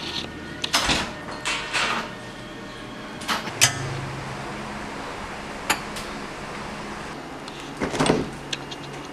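Kitchen doors being handled: scattered knocks and a sharp clack, then a refrigerator door pulled open near the end, under a steady low hum.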